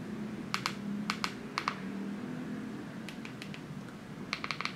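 Keypad buttons of a rugged MyPhone SOSPHONE (My112) feature phone clicking under the thumbs: pairs of clicks in the first two seconds, then a fast run of clicks, several a second, near the end.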